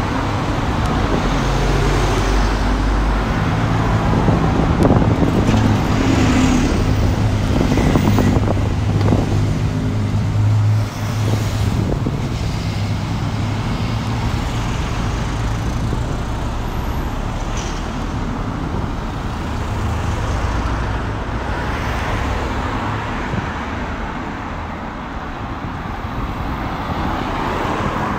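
Road traffic: cars driving past along the street, with engine hum and tyre noise, and a vehicle engine's low steady hum strongest for the first several seconds.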